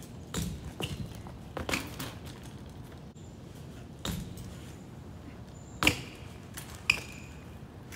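BMX bike knocking and clattering as it is ridden through street tricks: a string of sharp knocks, the loudest two about six and seven seconds in, the last of them ringing briefly like metal.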